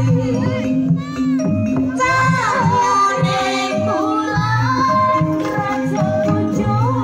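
Live jaranan band music: low drums keep a steady beat under held melody notes and a singing voice.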